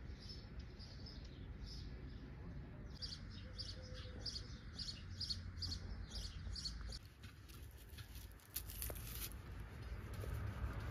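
A bird chirping: short high chirps repeated about twice a second, with a brief burst of high hiss and clicks about eight seconds in.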